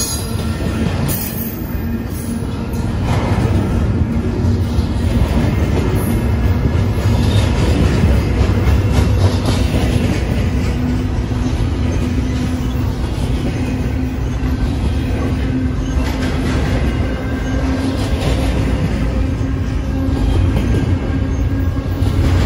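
Double-stack intermodal freight cars rolling past on steel rails: a steady, loud rumble of wheels with a rhythmic clickety-clack and rattle.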